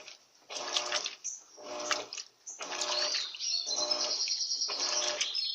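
Turbo washing machine agitating a load of bed linen: the motor and impeller churn the water in short back-and-forth strokes, about one a second with brief pauses between. A bird chirps over it in the last couple of seconds.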